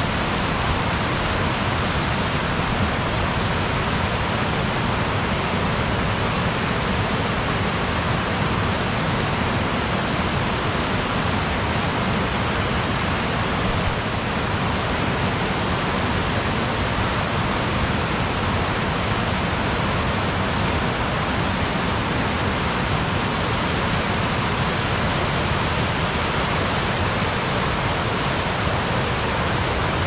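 Rushing water: a loud, even rush that holds steady throughout.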